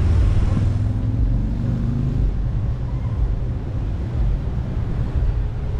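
Steady low rumble of wind and road noise on a microphone mounted on a car roof as the car drives slowly in traffic, with a faint engine note rising briefly in the first couple of seconds.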